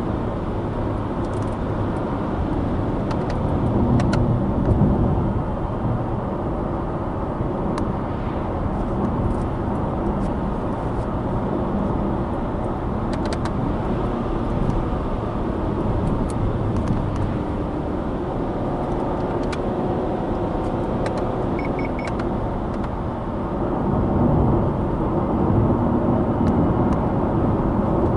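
Subaru Impreza Sport's 1.6-litre FB16 flat-four engine and tyres while the car drives along the road: a steady rumble of engine and road noise that swells a little twice, with occasional faint ticks.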